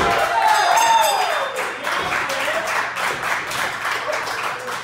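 A small crowd shouting and cheering at the end of a pro-wrestling pin count, then clapping. A thump on the ring mat comes right at the start.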